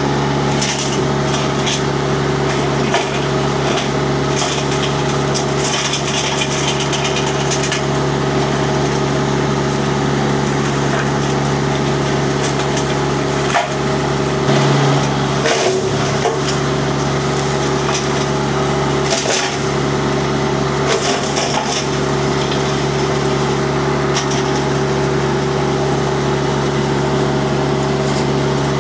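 A mini skid steer's diesel engine running steadily under load while its disc mulcher chips wood. Several bursts of crackling and splintering come through as the disc cuts into the wood.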